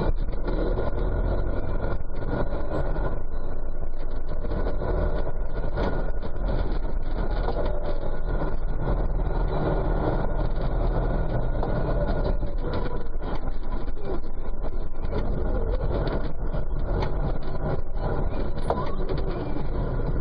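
Tractor engine running steadily under load.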